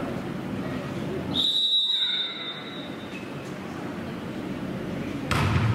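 Referee's whistle, one short single-pitched blast, signalling the serve in a volleyball match. Near the end comes a sharp slap of the ball being hit, with voices echoing around the sports hall.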